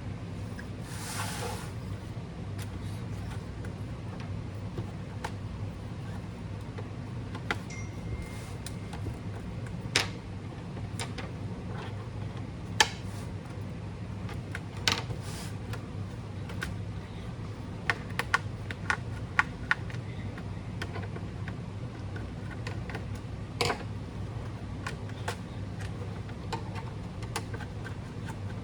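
Scattered small clicks and taps of a Dell Latitude 3500 laptop's parts being handled during an SSD installation, irregularly spaced, over a steady low hum.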